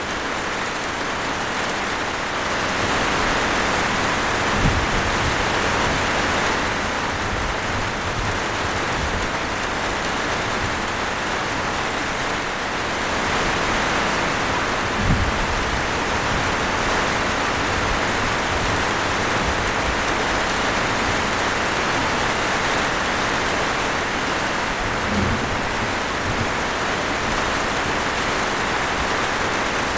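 Steady rainfall, a continuous hiss of drops that swells and eases slightly, with three short low thumps about ten seconds apart.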